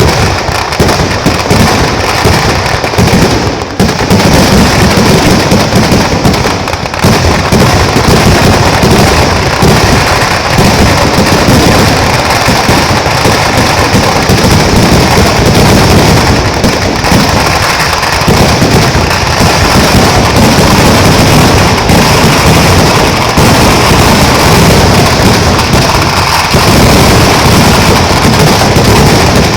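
Kerala festival fireworks (vedikettu): a dense, unbroken barrage of firecracker blasts so close together that they merge into one continuous, very loud din with a heavy low rumble. It eases only for a moment about four seconds in and again about seven seconds in.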